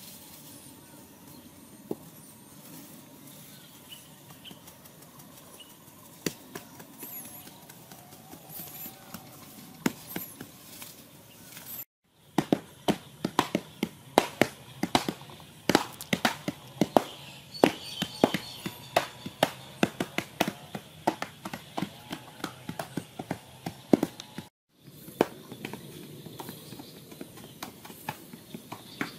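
Hand digging tools chopping and scraping into damp packed earth. After a cut, a dense run of sharp strikes follows. The sound breaks off briefly twice at edits.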